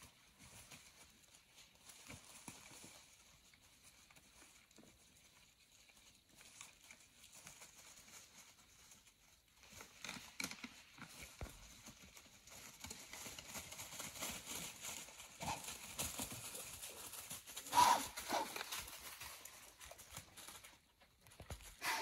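White-tailed bucks fighting in dry fallen leaves: hooves scuffle and crunch through the leaves amid rapid clicks and clacks of the struggle. It grows much louder about ten seconds in, with one sharp loud sound near the end.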